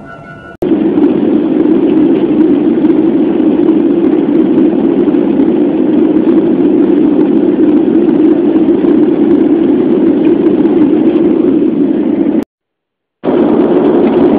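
Steady, loud cabin noise of an airliner in flight, heard from inside the cabin: engine and airflow noise with no changes in pitch. It starts suddenly just after a short tail of music and cuts out for under a second near the end.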